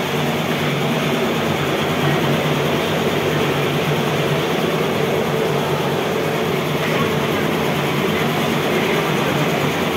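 Loud, steady drone of fruit-processing machinery running, with a low hum underneath.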